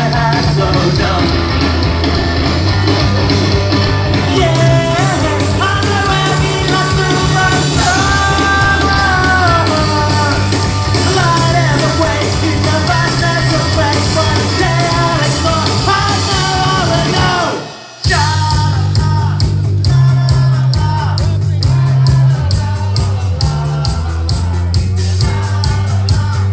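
Rock band playing live, with a singer over a steady bass line and drums. The sound drops out abruptly for a moment about two-thirds of the way through, then the music carries on.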